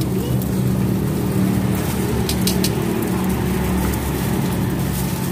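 Steady low motor rumble, with a few light clicks about halfway through.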